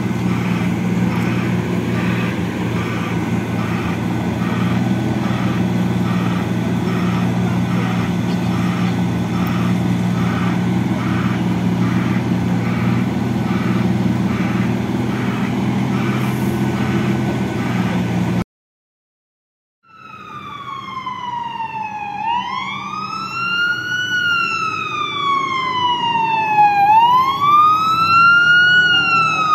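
Fire engines' engines running with a steady low drone. After a sudden cut, a fire engine's siren wails, rising quickly and falling more slowly in cycles of about five seconds, getting louder near the end.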